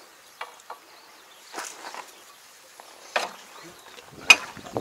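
Scattered knocks and scrapes of a steel pry bar levering a derailed crawler track back onto its wheels, with one sharp, ringing metal clank near the end.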